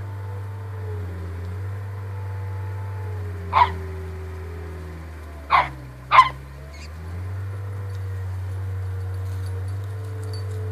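Corgi puppy giving three short barks, the last two close together, over a steady low rumble.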